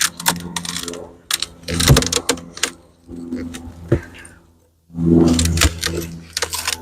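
Sharp clicks and knocks of hive parts being handled during a hive inspection, over a steady hum of honey bees that grows louder in the last couple of seconds.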